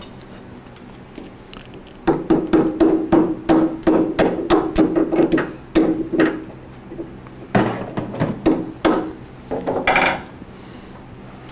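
Hammer tapping on a DeWalt 788 scroll saw part clamped in a bench vise: a quick run of blows, about four a second, starting about two seconds in, then a shorter run near eight seconds, with a ring under the blows.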